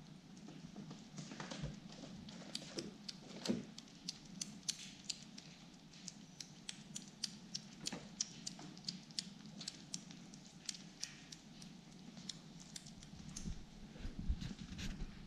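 Kittens eating wet food from a plate: quick wet smacking and lapping clicks, several a second. A few low thumps come in near the end.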